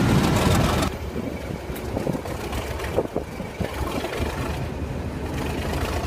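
Model freight train rolling past: a low rumble with a few faint clicks as the wagons' wheels go by. A louder steady noise cuts off abruptly about a second in.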